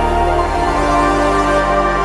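Background music: a soft, sustained instrumental track with held notes, its bass shifting about half a second in.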